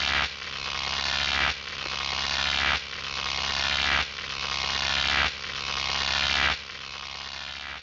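Electric buzzing and crackling sound effect over a steady low hum, swelling and then cutting back sharply about every second and a quarter, weaker near the end.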